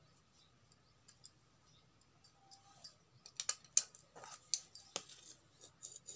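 Hands handling and smoothing folded cloth, with a run of light clicks and taps that cluster about halfway through.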